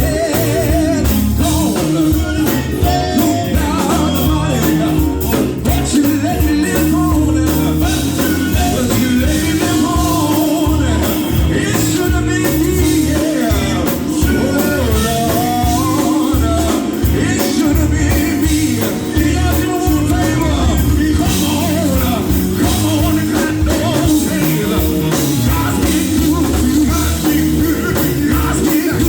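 Live gospel band music with singing: a full band with drums and bass driving a steady beat under the voices.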